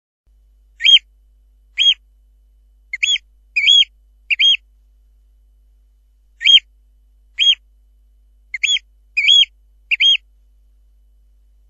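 Eurasian oystercatcher calling: a run of five short, high, piping calls, then after a pause of about two seconds the same run of five again, as in a looped recording.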